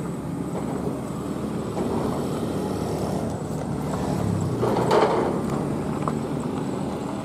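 Road traffic: a motor vehicle's engine running with tyre noise, and a vehicle passing close by about five seconds in.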